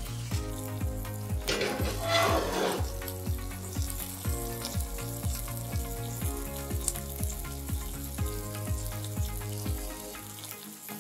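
Background music with a steady beat, over a steady sizzle from a cast-iron skillet pizza just out of a hot oven. A louder rushing hiss comes about two seconds in.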